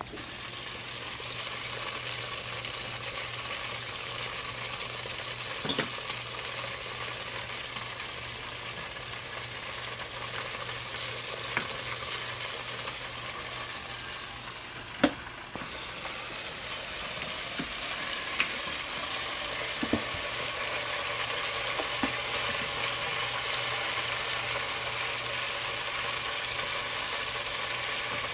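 Breaded chicken fillets deep-frying in hot oil in an electric deep fryer: a steady sizzle. A few short sharp clicks of metal tongs come through, the loudest about halfway.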